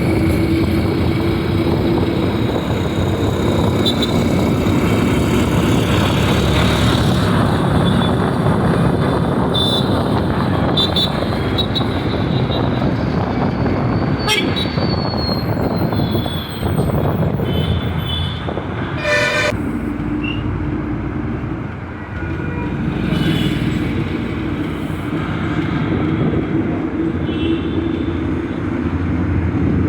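Steady road traffic noise with vehicle horns honking now and then, one longer horn blast a little past the middle.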